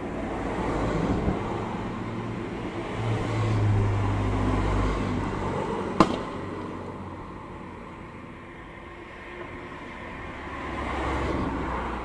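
Motor vehicles passing, their engine and road noise swelling and fading, with one sharp crack about halfway through.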